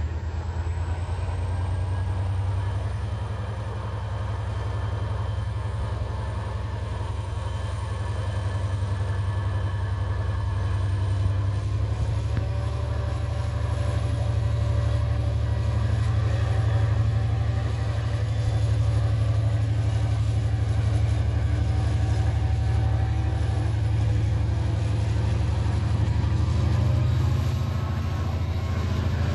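Henschel diesel locomotive hauling a passenger train, its engine running with a steady deep rumble that grows a little louder about halfway through.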